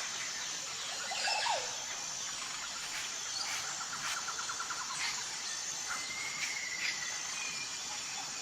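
Outdoor woodland ambience: a steady high insect drone with birds chirping and trilling over it, on a constant hiss.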